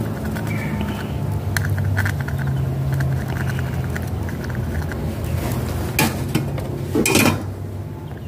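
Small metallic clicks and scrapes of a soldering iron tip being worked over a circuit board, over a steady low hum. A louder clatter comes about seven seconds in, as the iron is lifted away.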